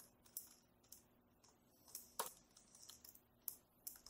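Faint computer keyboard keystrokes: about a dozen separate key taps at an irregular pace, the loudest about two seconds in.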